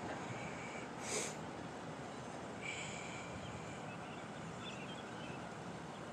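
A short sniff close to the microphone about a second in, over steady outdoor background noise.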